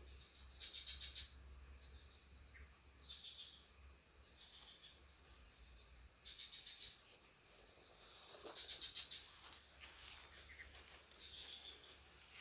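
Faint insect chirping: a steady high buzz, with short bursts of rapid pulsing every couple of seconds.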